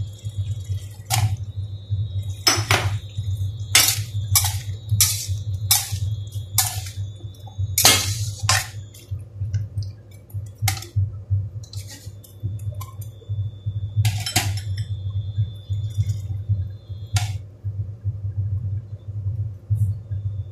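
A metal spatula scraping and clanking against a stainless steel wok while vegetables are stir-fried. The strikes come about once a second for the first nine seconds, then only now and then.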